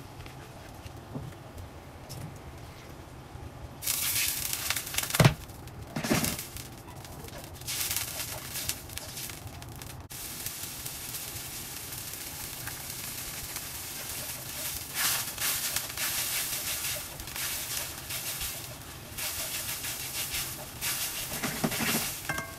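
Sliced onions sizzling in sauce and oil in a hot stainless-steel wok, starting about four seconds in and swelling and fading through the rest, with two sharp knocks about five and six seconds in. A spatula stirs and scrapes the pan near the end.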